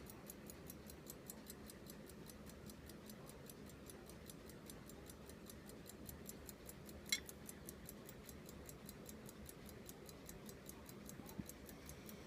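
Vintage Illinois box-hinge pocket watch ticking faintly and evenly, about five ticks a second, with one sharp click about seven seconds in.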